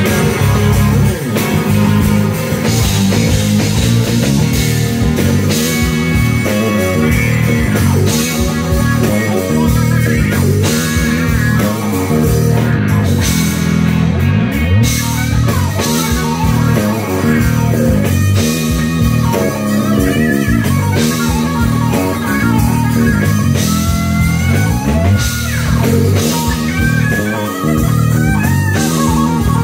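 Live rock band: an electric guitar playing lead lines with bent, sliding notes over a drum kit, loud and continuous.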